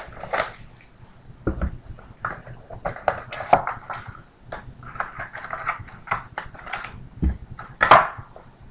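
A trading-card hobby box being opened by hand and the foil-wrapped card packs inside handled: irregular rustling, scraping and light tapping of cardboard and foil, with a louder rustle near the end.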